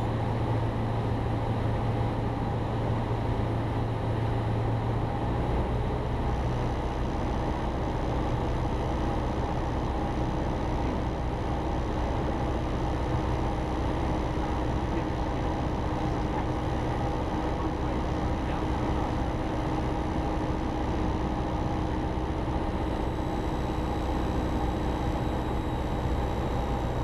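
Cessna 172's engine and propeller droning steadily in cruise-descent power, heard inside the cabin.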